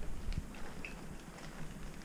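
Footsteps of a hiker on a forest trail, a couple of soft steps early on, with a brief high chirp a little before the middle.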